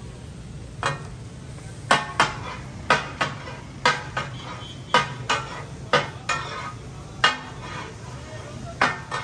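Metal utensils clanking on a large tawa griddle: sharp ringing strikes roughly once a second, often two in quick succession, over a low steady hum.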